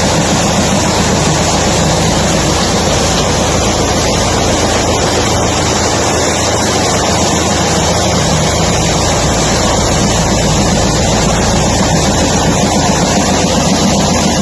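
Hydraulically driven poultry-house sweeper running: a loud, steady machine drone with a low hum under a broad hiss, unchanging throughout.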